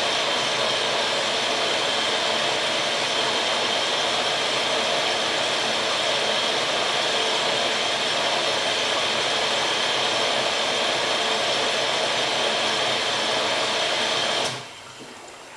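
AEG Lavamat 86760 front-loading washing machine filling with water at the start of the wash: a steady rushing hiss of water coming in through the inlet valve while the drum stands still. It cuts off suddenly about a second before the end.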